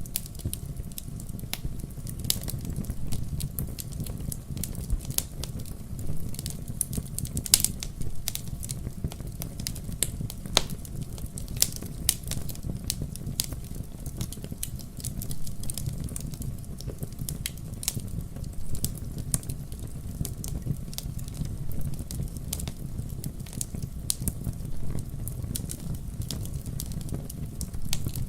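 Wood fire burning in a fireplace: irregular sharp crackles and pops over a steady low rumble of the flames, a few louder pops standing out, one near a quarter of the way in.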